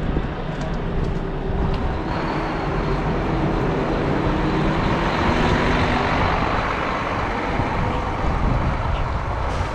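Steady motor-vehicle engine and road noise, with a faint drifting engine hum, heavier in the middle.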